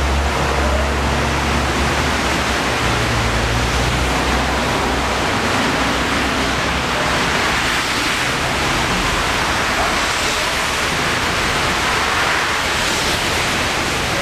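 Alstom R160A subway train coming to a stop at an elevated station. Its low rumble fades away over the first five seconds or so, leaving a steady, loud rushing noise.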